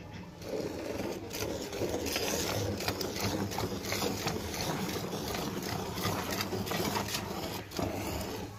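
Hand-milking a cow: streams of milk squirted from the teats into an enamel pot already holding frothy milk, in quick repeated squirts, starting about half a second in.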